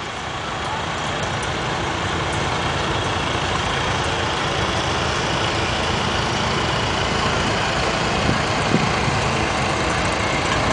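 Engines of a line of vintage farm tractors running as they roll past, a steady mass of engine noise that builds over the first couple of seconds and then holds.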